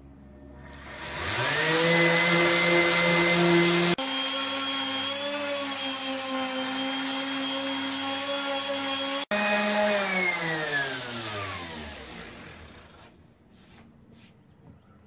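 Electric orbital sander with 40-grit paper sanding an oak board. The motor whines up to speed about a second in and runs steadily, its pitch jumping abruptly twice, then winds down to a stop from about ten seconds in.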